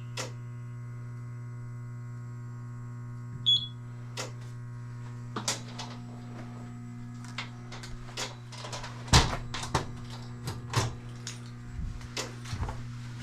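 A steady electrical hum throughout, with one short high beep about three and a half seconds in. Scattered clicks and knocks become more frequent in the second half.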